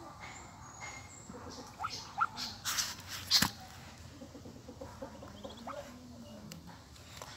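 Newly hatched ducklings peeping: short, faint rising peeps scattered through, under rustling of nest bedding as a hand works beneath the sitting mother. About two to three and a half seconds in comes a burst of loud rustling and scraping.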